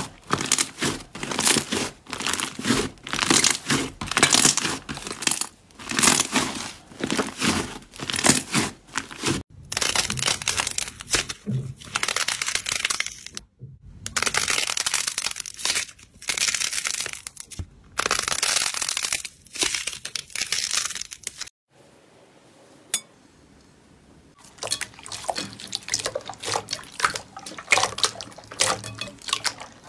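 Hands pressing, squeezing and kneading slime: repeated crackly, squishy strokes one after another, with a short quiet gap about two-thirds of the way through.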